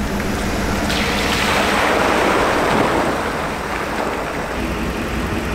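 A motor running steadily at low speed, with a loud rushing noise over it that swells through the middle and then eases.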